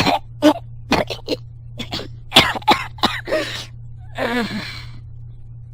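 A person coughing and spluttering in a string of short coughs, then a brief groan falling in pitch about four seconds in.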